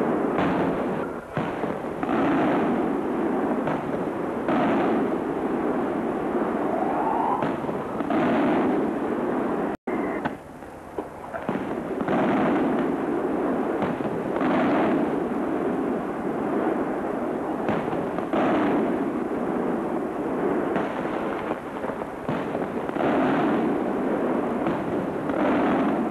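Aerial firework shells bursting one after another, a loud bang every two to four seconds, each fading out over about a second, over a steady background of crackle and rumble. The sound cuts out for an instant just before halfway.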